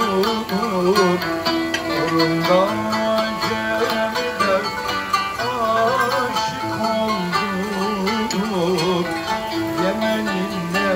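Traditional Turkish music: plucked strings under a wavering, ornamented melody line, an instrumental stretch ahead of the sung Turkish verses.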